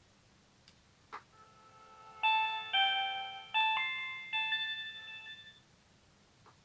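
A Samsung SGH-M140L mobile phone's speaker plays a short polyphonic jingle: four chime-like chords, each ringing out and fading, after a click about a second in.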